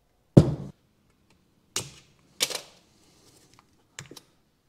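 A car halfshaft and its parts knocking against a wooden workbench as they are handled and set down. There is a loud knock about half a second in, two more a second or two later, and two light clicks near the end.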